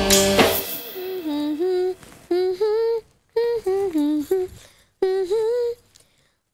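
A music cue fades out in the first second, then a woman hums a wordless tune in short phrases with brief pauses between them.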